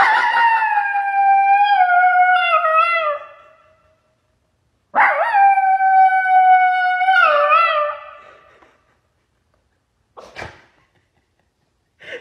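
Toy Australian Shepherd howling into a toy karaoke microphone: two long, high, wavering howls, the second starting about five seconds in. A short knock follows near the end.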